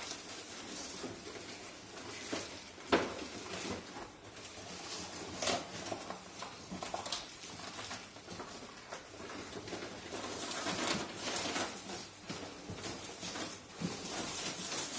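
Plastic bags, plastic-wrapped packs and clothes rustling and crinkling as they are handled, with a few sharp clicks or knocks, the loudest about 3 seconds in. The rustling is busier for a stretch near the end.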